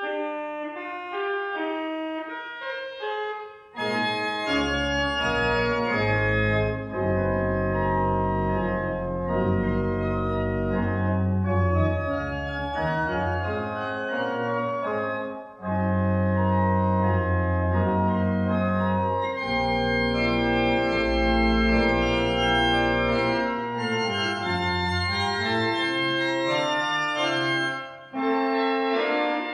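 Church organ playing: held chords in the upper register alone at first, then deep pedal bass notes come in about four seconds in, with the music breaking briefly between phrases about halfway through and again near the end.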